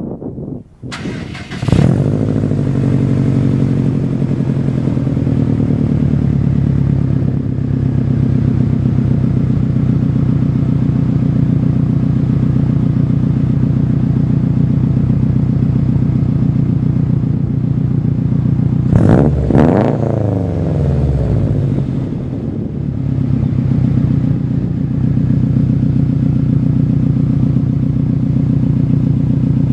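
2011 Subaru WRX STI's turbocharged flat-four, with the stock unequal-length exhaust manifold, an Invidia catless downpipe and an Invidia N1 non-resonated exhaust, starting about two seconds in and settling into a loud, steady idle. About two-thirds of the way through it is revved once, the pitch rising and falling back to idle.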